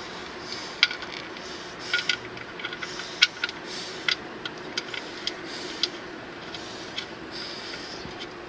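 Irregular small metallic clicks and taps as the oil drain plug is handled and put back into the oil pan, over a faint steady hiss.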